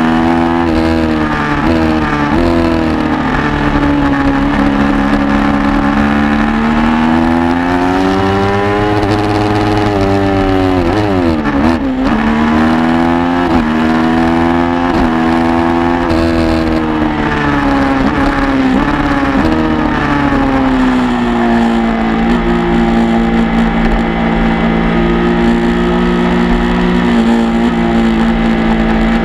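Motorcycle engine under way, its pitch rising and falling as the rider works the throttle and gears through corners. The revs drop to a low point just before the middle, climb again, then hold fairly steady for the last several seconds.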